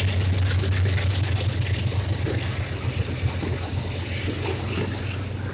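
Diesel locomotives of a freight train running past, a steady low engine drone that slowly fades as they move away, while empty flatcars roll by with faint clicks from the wheels on the rails. No horn sounds.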